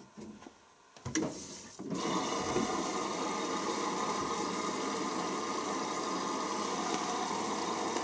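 Hoover Optima OPH714D washing machine starting its cycle: a few clicks, a brief louder burst about a second in, then from about two seconds in a steady rush of water filling through the inlet valve.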